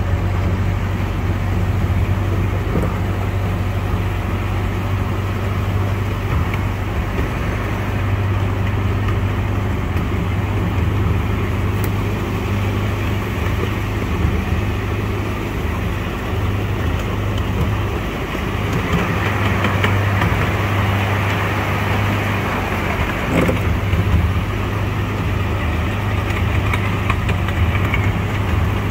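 Ride-on miniature park train running along its track: a steady low engine hum with a noisy running rumble over it, the rumble growing a little louder about two-thirds of the way in.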